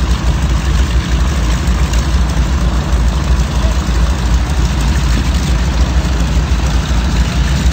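Radial engines of North American T-6 Texan trainers, Pratt & Whitney R-1340 nine-cylinder Wasps, running at taxi power: a loud, steady, low rumble.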